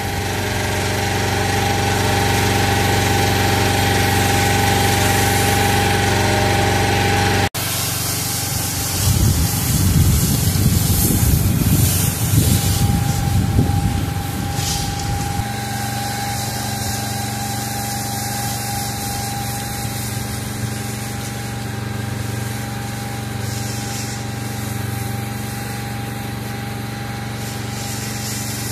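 Pressure washer running: a steady motor-and-pump hum with a constant whine under the hiss of the lance's water jet spraying concrete and brick. The sound breaks off briefly about seven seconds in, and the spray is loudest and roughest for several seconds after that.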